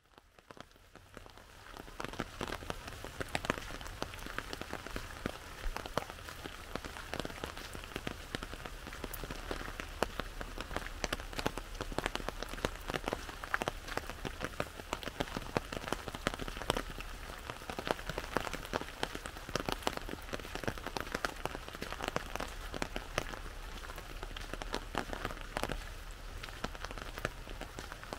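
Rain falling on an umbrella overhead: a dense, irregular pattering of sharp drop hits over a steady hiss of rain. It fades in over the first couple of seconds.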